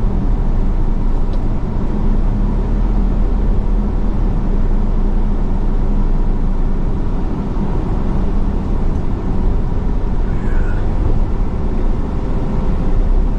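Steady low rumble of road and engine noise inside a moving vehicle, picked up by a GoPro on a plain dash mount with no extra wind or sound accessories.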